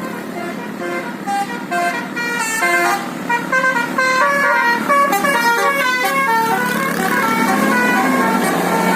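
Telolet multi-tone musical air horns on two buses sounding together: quick stepping notes overlap in a jumbled melody, densest in the middle and thinning out near the end, over a steady engine hum.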